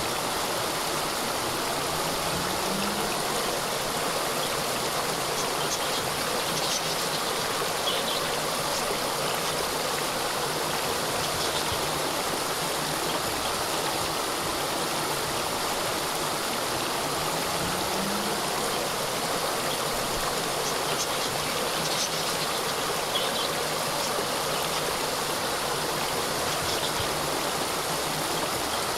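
Small cascade of water falling and running steadily, an even rushing splash, with a few faint short high chirps now and then.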